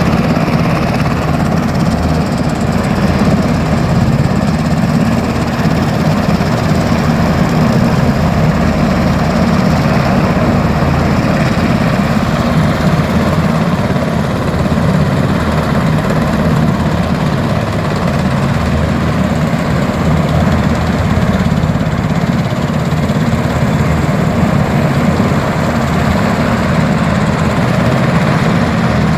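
Military helicopters running, a loud steady rotor and engine noise with a low, rapid chop.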